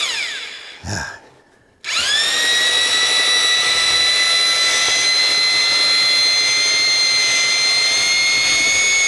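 Corded DeWalt mud-mixing drill turning a two-bladed paddle in a bucket of drywall joint compound. It winds down at the start, gives a short burst about a second in, then spins up quickly and runs at a steady high whine.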